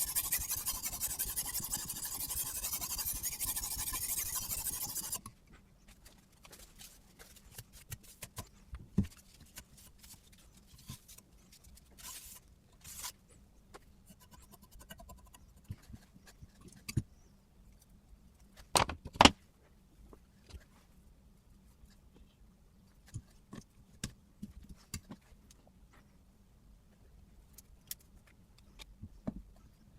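A sharpening stone scraping steadily along a steel knife blade for about five seconds, then stopping suddenly. Scattered light clicks and taps follow as the sharpener and knife are handled, with two sharper clicks about two-thirds of the way through.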